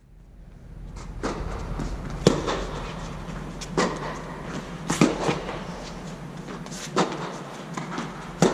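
Tennis balls struck by rackets and bouncing on a hard court during a rally: sharp pops every second or two, the loudest about two, five and eight seconds in, over a steady low hum.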